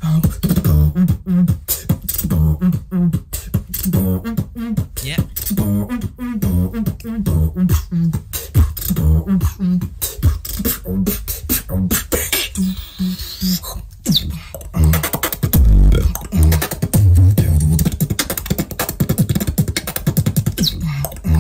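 Solo beatbox routine: fast, tightly packed kick, snare and click patterns made with the mouth. About two-thirds through, the pattern thins out briefly to higher sounds, then it comes back with heavy, deep bass hits.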